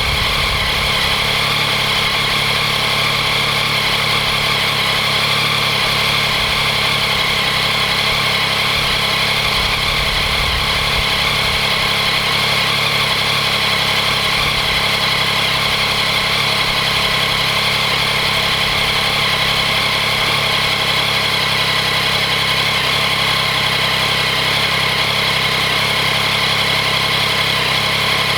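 Yamaha MT-09's three-cylinder engine idling steadily while warming up from a cold start, with the rattling, ticking noise that the owner is asking about. The cam chain tensioner has already been replaced with the updated part.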